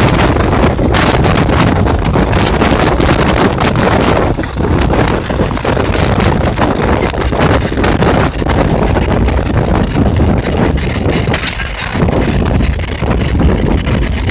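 A vehicle being driven over rough ground, with loud wind buffeting the microphone and frequent knocks and rattles from the bumps.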